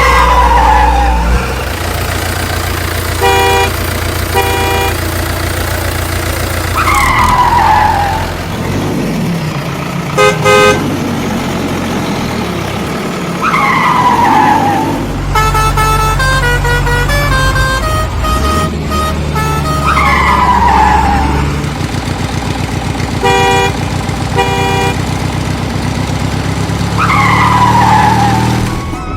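Truck sound effects: a steady low engine rumble with short paired horn toots and a falling whistle-like tone repeating about every six to seven seconds.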